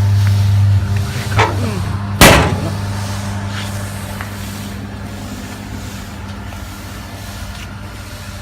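Feed mixer's 3 hp electric motor and reduction drive running with a steady low hum, which drops in level about a second in. A loud sharp metal bang comes about two seconds in, and then a steady running noise that slowly fades.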